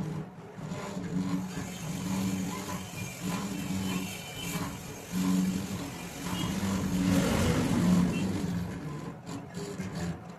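Stepper motors of a homemade Arduino CNC pen plotter whining in short start-stop moves as the pen draws. There is a louder, rougher stretch about seven to eight seconds in.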